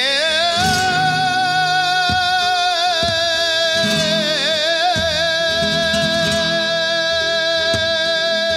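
Flamenco cantaor singing the opening lament (quejío) of a caña: one long held note with small wavering melismatic turns around the middle, over flamenco guitar chords.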